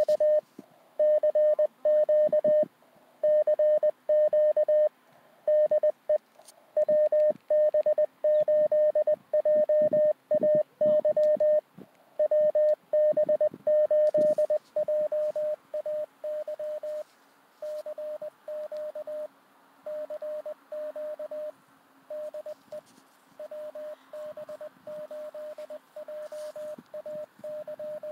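Morse code (CW) from a Mountain Topper QRP transceiver: a single steady tone keyed on and off in dots and dashes. It drops noticeably in loudness about halfway through.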